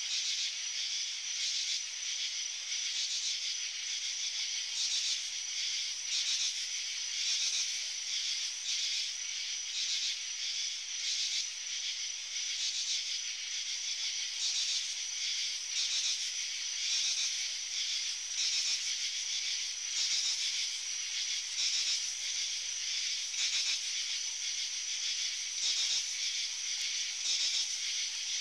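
Chorus of night insects: a steady high-pitched chorus that pulses faintly, laid over the render as ambient night sound.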